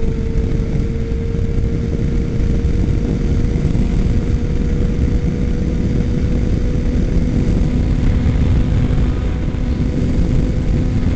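2006 Suzuki Katana 600's inline-four engine running at a steady freeway cruise, its note holding nearly level with a slight rise. Heavy wind rush buffets the helmet-mounted microphone.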